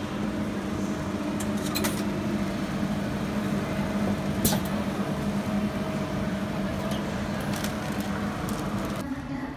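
Automatic soft-serve ice cream vending machine running as it fills a waffle cone: a steady mechanical hum with a few sharp clicks. The hum cuts off near the end.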